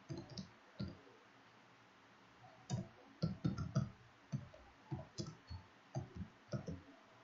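Typing on a computer keyboard: separate faint keystroke clicks, a few near the start, then a steady run from about two and a half seconds in.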